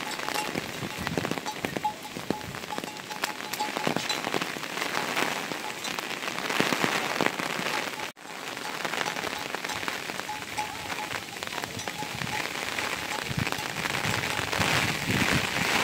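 Steady rain pattering, dense with many small close drop hits; the sound cuts out briefly about eight seconds in.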